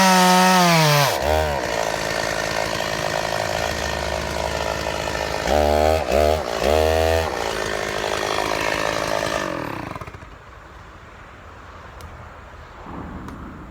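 Two-stroke chainsaw at full throttle drops to idle about a second in as the trigger is released. It is given three short revs, then shut off about ten seconds in.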